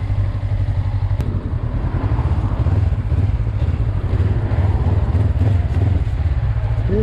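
Honda CB500X's parallel-twin engine running steadily as the bike rides a rough grassy lane, heard from on board the bike, with a faint click about a second in.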